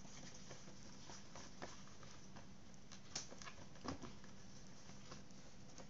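Hands pressing and stretching pizza dough out in a pan: faint soft pats and light taps, with a few slightly louder ones around the middle.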